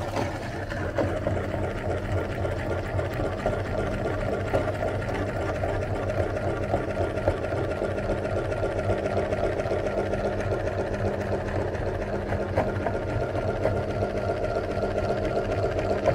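Electric meat grinder running steadily as it grinds ice cream and chocolate pieces through its cutting plate: a constant motor hum with a few faint clicks.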